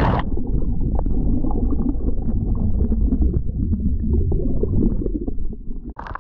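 Muffled underwater rush and gurgle of churning water and bubbles around a submerged GoPro after a cliff jump into the sea; only the low end comes through, as it does heard through water, with many small bubble ticks. About six seconds in, the camera breaks the surface and the sound suddenly opens up.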